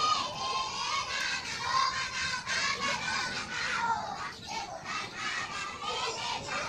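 Several high-pitched voices shouting and calling over one another, excited and unbroken, like children at play.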